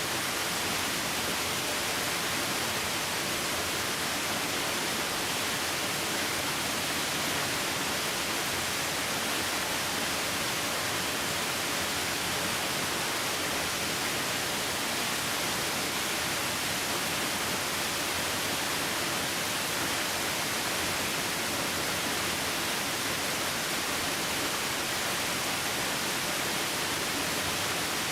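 Waterfall: a steady, unbroken rush of falling water, an even hiss with no changes.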